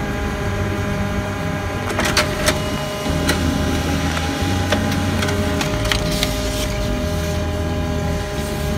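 HP LaserJet MFP M28 laser multifunction printer running a copy: its scanner carriage motor whines steadily as the scan bar travels under the glass. The mechanism clicks several times, starting about two seconds in.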